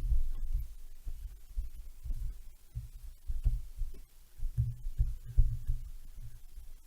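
Irregular dull low thuds with a few faint clicks: handling and tool noise as the crankcase nuts of a Stihl 070 chainsaw are worked on at the bench.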